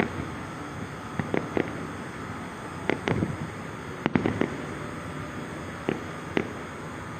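A series of about ten sharp bangs at irregular intervals, some in quick pairs, with a tight cluster of the loudest about four seconds in, over a steady background rumble.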